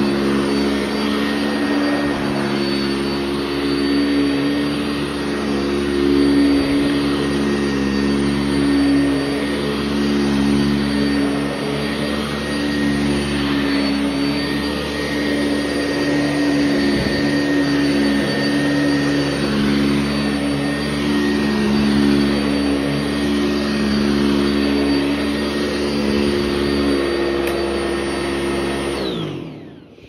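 Sanitaire SC679 commercial upright vacuum running over carpet with a Vibra-Groomer II brush roll: a steady motor whine over the rush of air and brush. Near the end it is switched off and winds down, falling in pitch.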